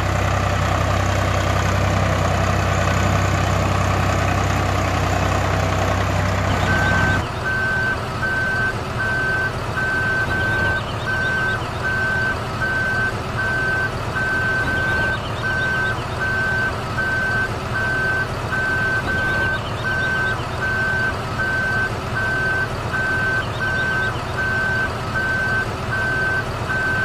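Heavy vehicle engine running with a deep steady hum, then about seven seconds in the sound switches abruptly to a reversing beeper: a steady series of evenly spaced high beeps over a softer engine rumble.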